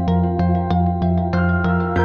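Background music: a calm new-age instrumental with a quick, even run of short notes over low held tones.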